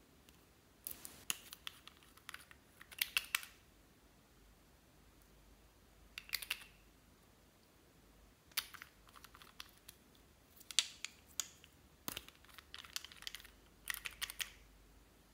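Clear slime being squeezed and stretched by hand, giving sticky crackling clicks and small air-bubble pops in about seven short irregular bursts.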